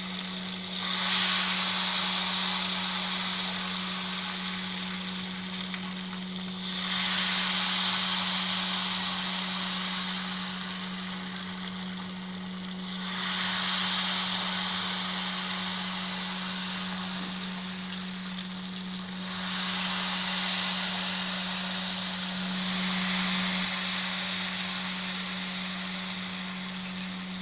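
Ghevar batter spooned into smoking-hot desi ghee, sizzling loudly: five surges of sizzle, one as each spoonful hits the fat, each slowly dying down before the next. The surges come about six seconds apart, the last two closer together.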